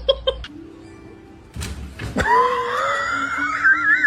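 Music: a loud, long high note comes in about two seconds in, rising and then wavering strongly near the end.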